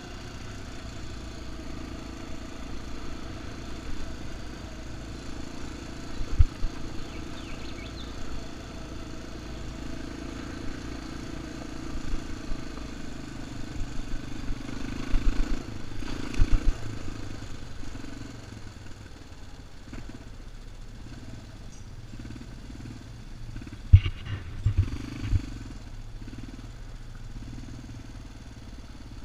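ATV engine running steadily while the quad drives along a dirt trail, with sharp knocks and clatter in clusters about six, sixteen and twenty-five seconds in.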